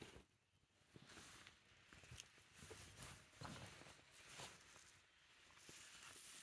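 Faint rustling of a polyester football jersey being handled and turned over, with a few small clicks.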